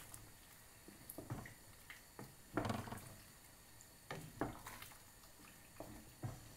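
Wooden spoon stirring soup in a stainless steel pot: liquid sloshing, with irregular soft knocks of the spoon against the pot, the loudest a little under three seconds in.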